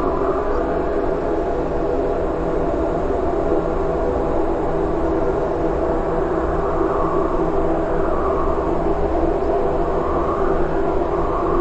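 Distorted noise-music drone: a dense, steady hum with held tones, and a sweep that rises and falls about every three to four seconds.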